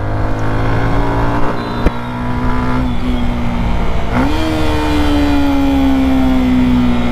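Motorcycle engine running while riding in traffic. An engine note climbs sharply about four seconds in, then slowly falls.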